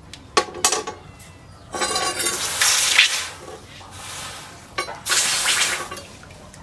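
A couple of sharp clinks, then a hot leaf-spring steel machete blade quenched in a trough of water: two bursts of hissing and rushing, sloshing water as the blade is dipped, the first about a second and a half long, the second about a second near the end.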